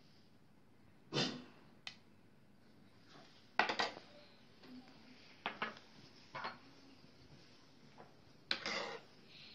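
Glassware knocking and scraping against a cooking pot and glasses clinking, about six short sounds a second or two apart, while chocolate pudding is scooped out of the pot into serving glasses.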